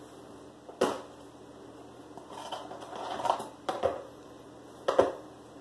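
Plastic VHS clamshell case being opened and the cassette taken out: a sharp click about a second in, a stretch of scraping and rattling, then a few more sharp clicks.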